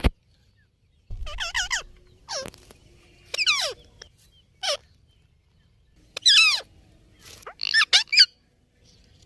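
Indian ringneck parrot calling: about six short, high, warbling calls in separate bursts, the loudest near the end.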